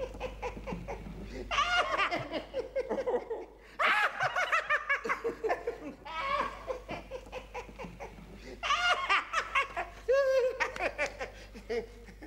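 A man laughing on stage in about five separate bouts, each a second or so long, with short gaps between them.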